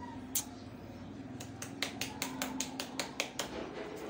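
A person clicking to call a cat: about a dozen sharp, irregularly spaced clicks, most of them between about one and a half and three and a half seconds in.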